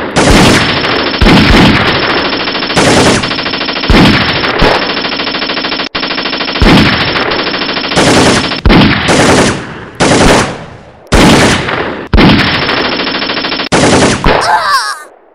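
Gunfire sound effects: long bursts of rapid automatic fire, about a dozen, following one another almost without a break, then dying away just before the end.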